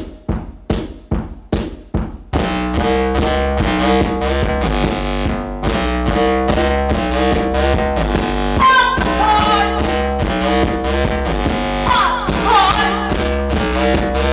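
Live electronic music played on keyboards: a couple of seconds of separate decaying percussive hits, then a full sustained chordal part over a steady pulse comes in, and later a higher lead melody with sliding notes joins.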